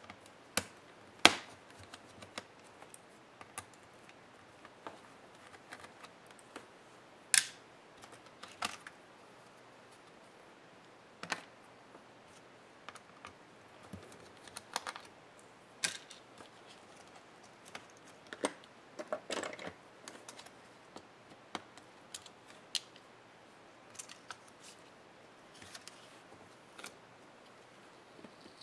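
Irregular small clicks and taps from hands and a small hand tool working inside an opened laptop, handling its plastic and metal parts and unclipping flat ribbon cables. The sharpest clicks come about a second in and about seven seconds in, and there is a short rustling stretch about two-thirds of the way through.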